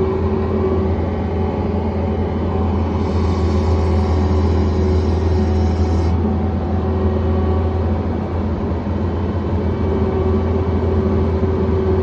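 John Deere 317 skid steer's diesel engine running steadily at a constant pitch, with a higher hiss joining for about three seconds near the middle.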